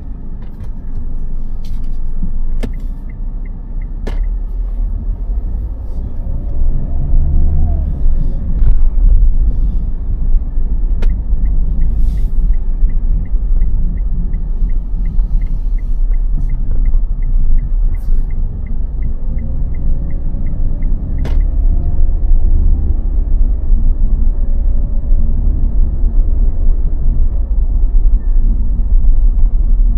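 City street traffic: cars passing under a heavy, steady low rumble, with a few sharp clicks and a faint fast ticking in the middle.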